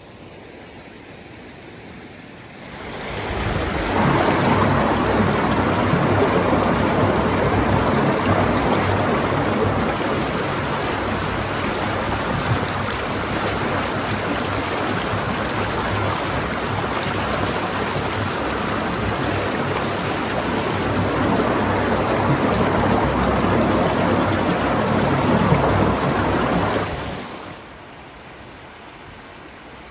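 Loud, steady rushing water, a full, even roar. It swells in about three seconds in and drops away near the end.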